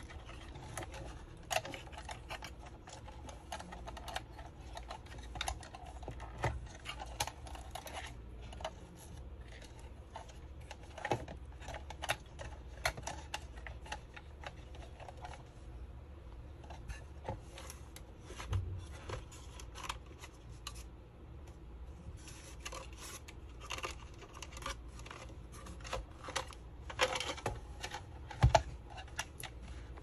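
Irregular small clicks and rustles of hands handling a router's plastic casing and a charger cable, feeding the wires through a hole in the housing, with a sharper click near the end.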